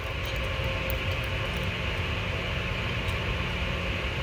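A steady mechanical hum with an even hiss, holding one level throughout, with a few faint light clicks from small metal parts being handled.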